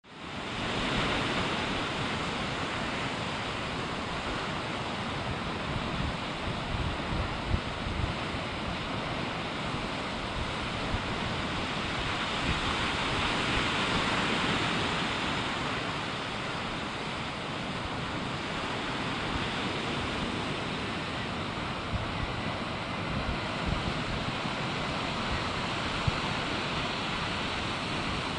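Sea surf washing steadily, with wind rumbling on the microphone; the surf swells for a few seconds about halfway through.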